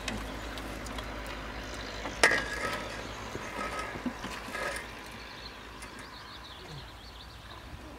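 Quiet, steady low background rumble, with one sharp knock about two seconds in and a few faint, brief tones after it.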